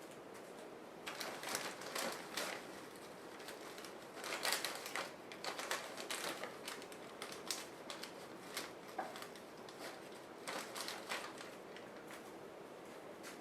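Small craft pieces being handled and rummaged at a work table: faint, light clicking and rattling in three short bouts.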